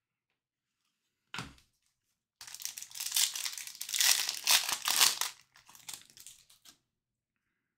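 A short knock, then a foil trading-card pack wrapper being torn open and crinkled for about three seconds, the crackling tapering off.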